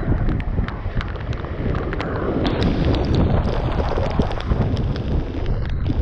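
Strong wind buffeting the microphone in heavy rain, a steady low rumble with many short sharp ticks scattered through it.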